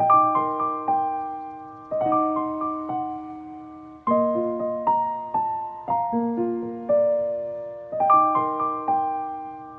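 Background music: a gentle piano melody of single struck notes, each ringing and fading, in phrases that start afresh about every two seconds.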